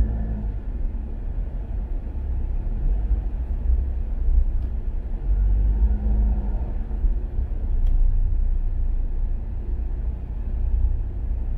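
Low, steady rumble of a car moving slowly in congested traffic, swelling briefly twice, with a faint tick about eight seconds in.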